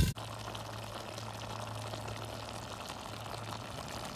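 Loud frying sizzle cut off abruptly a fraction of a second in, then a faint steady hiss of food cooking in a pan, with a low hum that stops near the end.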